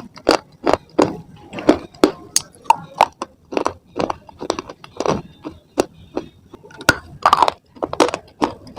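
Close-up crunching of dry slate stone pieces being bitten and chewed: a run of sharp, brittle crunches, about two a second, unevenly spaced.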